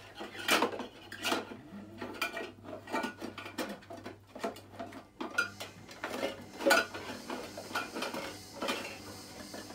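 Metal tins, steel containers and plastic bowls in a dog's noise-box tray clanking and clattering irregularly as the dog noses through them. The loudest clangs come about half a second in and again near seven seconds.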